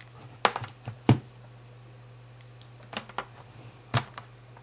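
About half a dozen sharp clicking taps, in two little clusters, as a finger taps and handles a tablet's touchscreen, over a steady low hum.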